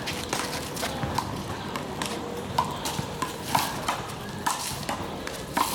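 One-wall handball rally: a rubber handball smacking off the wall and off players' hands in sharp, irregular cracks, with sneakers scuffing and squeaking on the court between hits.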